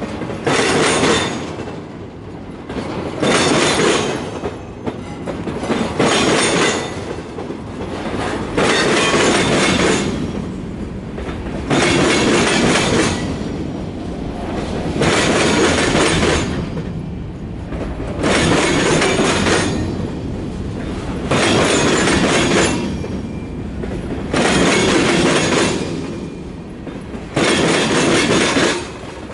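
Freight train cars rolling past close by, their steel wheels clattering over the rails. The clatter rises and falls about every two seconds as the cars go by.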